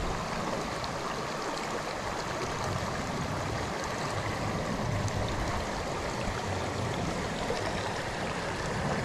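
Shallow creek water flowing steadily over rocks and around the wader's legs.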